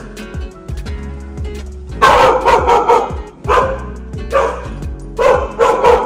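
A dog barking repeatedly, a string of sharp barks at uneven intervals starting about two seconds in, over background music.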